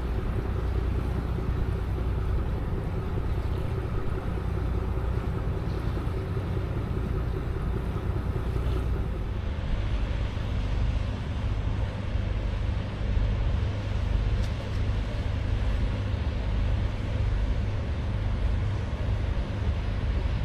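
Steady low engine hum of a cruise ship underway, with wind buffeting the microphone and water noise. About ten seconds in the mix changes, with more low wind rumble.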